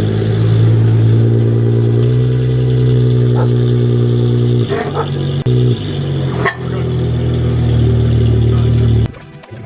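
Audi S4 engine running on its old exhaust with a steady drone. The drone breaks up with a few short clicks around the middle, resumes, and cuts off abruptly near the end.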